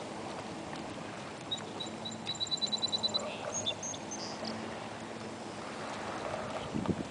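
A small bird singing: a few clear, high notes that speed up into a quick trill, then a couple of higher notes, over a steady outdoor background hiss. A short rustle follows near the end.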